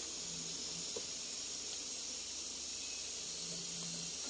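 Steady high-pitched hiss of an insect chorus in the forest.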